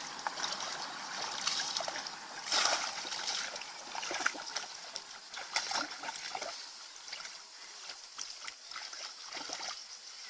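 Water splashing and trickling in irregular bursts, loudest about two and a half seconds in and sparser in the second half.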